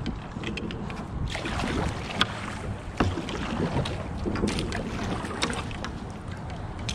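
Water lapping and sloshing against a kayak's hull, with wind buffeting the microphone and scattered small clicks and knocks.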